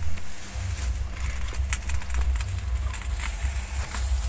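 Gas stove burner running under an empty wok, a steady low rumble with a hiss and a few faint clicks as the wok heats.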